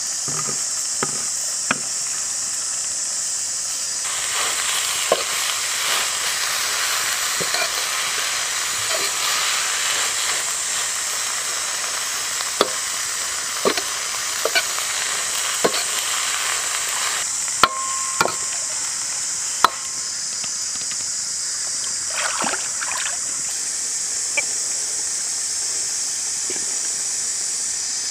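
Vegetables and chicken liver sizzling as they are stir-fried in a wok, with a metal ladle scraping and knocking against the pan at irregular moments. The sizzle swells from about four seconds in and eases again after about twenty seconds.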